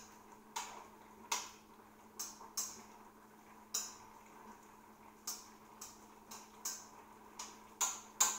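A utensil stirring food in a wok: irregular sharp clicks and taps, about two a second, over a faint steady hum.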